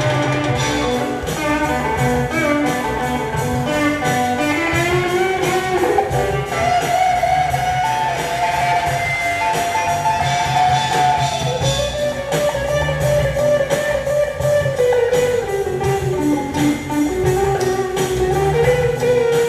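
Rock band playing live: an electric lead guitar plays a melody of long held notes with slides between them, over bass guitar and drums.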